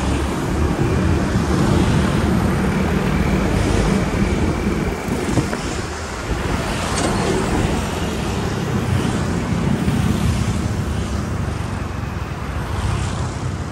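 Motor scooter riding through street traffic: its small engine running steadily, with road and wind noise and other motorbikes and cars passing.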